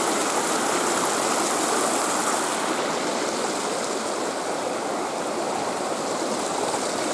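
Small rocky mountain creek rushing over stones, a steady wash of water. The sound grows slightly quieter and duller about three seconds in.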